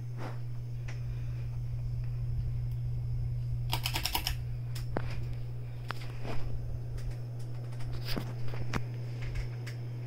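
Encon/Westinghouse petite ceiling fan running with a steady low motor hum. Irregular light clicks sound over it, with a short burst of rapid clicking about four seconds in.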